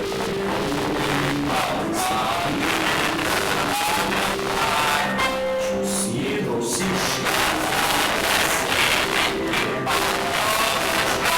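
Music with several voices singing together, a melody carried in sustained notes.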